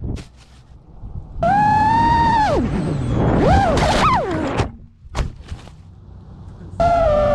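Brushless motors of an FPV quadcopter whining in several short bursts, the pitch rising and falling with the throttle, with sharp knocks of a crash about five seconds in.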